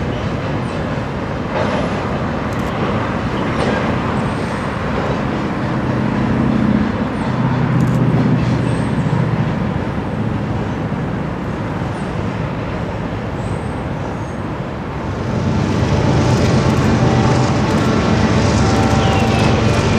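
Freight train passing close by: a steady rumble and rattle of rolling cars, with a deep diesel engine drone that swells about fifteen seconds in.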